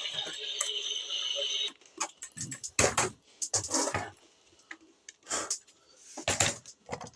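A sound with steady tones that cuts off suddenly about a second and a half in, followed by scattered light clicks and knocks.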